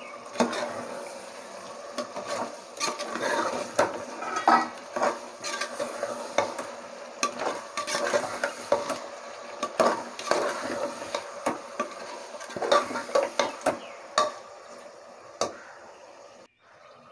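A ladle stirring chicken pieces through tomato masala in an aluminium pressure cooker pot, scraping and knocking against the pot in quick irregular strokes, over a light sizzle from the cooking. The stirring stops near the end.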